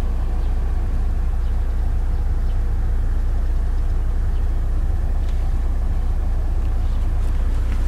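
Mitsubishi Montero Sport's engine idling steadily, heard from inside the cabin as a deep, even rumble.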